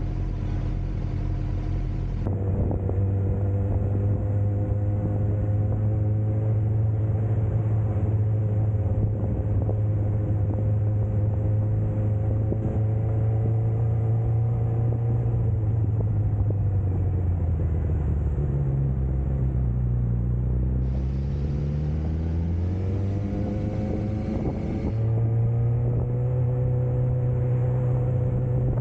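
Suzuki GSX-R's inline-four engine, heard from the bike itself: running low at a standstill, then pulling away about two seconds in and cruising steadily. Its pitch drops as the bike slows about two-thirds of the way through, then rises again as it accelerates.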